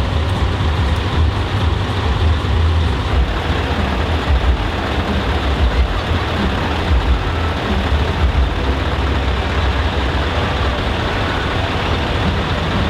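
Heavy trucks' engines running, a steady deep rumble that pulses unevenly in the bass.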